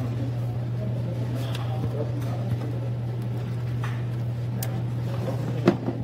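Hand tool clicking and knocking against parts in a car's engine bay, a few light clicks and one sharp click near the end, over a steady low hum.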